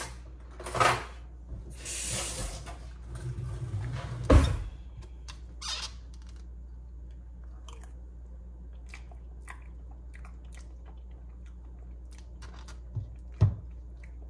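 A person eating ice cream with a spoon: rustling and handling noises with a sharp knock about four seconds in, then faint scattered spoon and mouth clicks while eating, and two dull thumps near the end.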